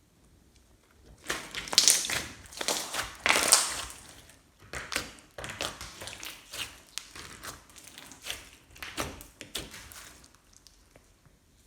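Slime mixed with crunchy beads being squeezed and pressed by hand: a dense run of sticky clicks, pops and crackles that starts about a second in and thins out near the end.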